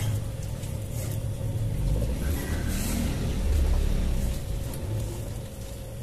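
A low rumble that swells a little past halfway through, with a faint steady hum above it.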